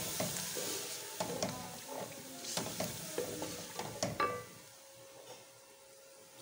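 Wooden spoon stirring and scraping round an aluminium pot of onions and garlic-ginger paste sizzling in oil with a little added water. The stirring strokes stop about four seconds in and it goes quieter.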